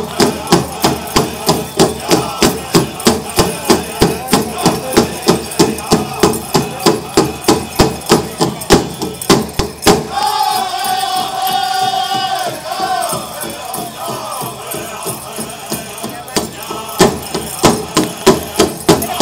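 Pow wow drum struck in a fast, even beat with the singers' high voices. About ten seconds in, the drumming softens while a high voice holds a long note, then the hard beat returns near the end.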